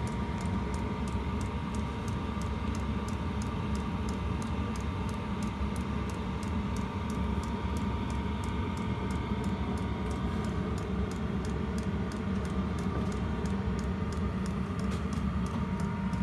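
A 12-volt all-in-one diesel air heater running: a steady blower rush and rumble with a faint whine, and the fuel dosing pump ticking about three times a second.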